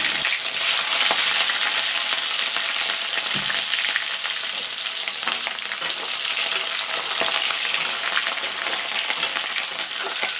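Sliced onions, potatoes and green chillies sizzling in hot oil in a kadai, stirred with a metal spatula that clicks and scrapes against the pan.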